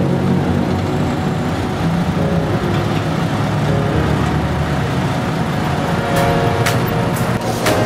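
Electronic dance music in an instrumental stretch: a heavy, buzzing bass line, with hi-hat ticks coming in about two a second near the end.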